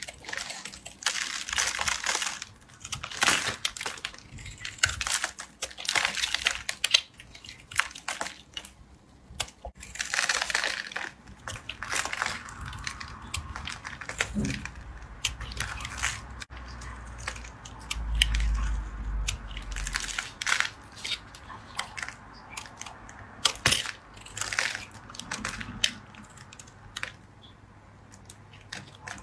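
A knife cutting and carving a bar of soap: a long run of irregular crisp scraping, crunching strokes as the blade slices through and the soap crumbles, with sharp little clicks between strokes.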